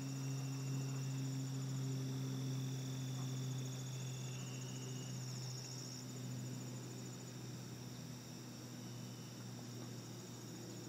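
Insect chorus of steady high-pitched trills, one of them fast-pulsing, over a steady low hum.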